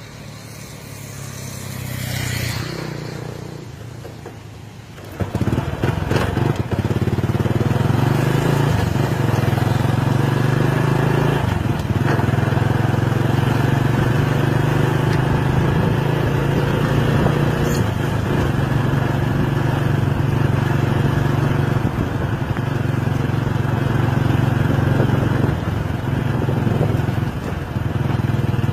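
An engine running steadily, starting about five seconds in, after a rushing noise that swells and fades.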